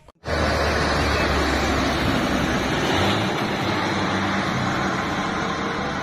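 A heavy flatbed truck loaded with an excavator driving along a road, its engine a steady low drone under tyre and road noise. The sound cuts in abruptly just after the start.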